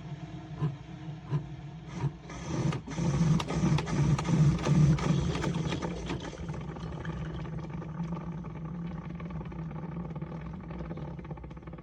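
SIFENE single-serve coffee brewer running as it brews: a steady pump hum with ticking at first. About two seconds in it gets louder and noisier, then settles back into a steadier hum that fades near the end.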